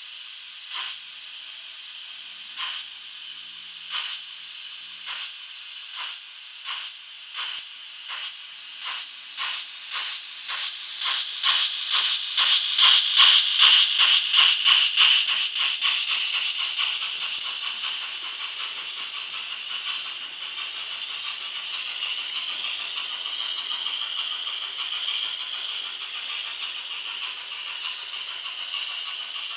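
Digital sound decoder of a Hornby OO-gauge GWR Castle-class steam locomotive, Kidwelly Castle, playing exhaust chuffs as it pulls away. The beats start slowly, about one a second, then quicken steadily until they blur into a continuous hiss. The sound is loudest as the train passes about halfway through.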